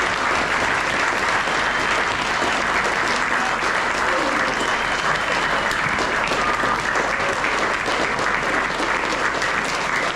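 A crowd applauding steadily, with a few voices calling out over the clapping.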